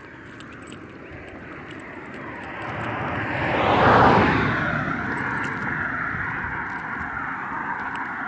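A road vehicle driving past: tyre and engine noise that builds steadily, is loudest about four seconds in as it passes, then fades away.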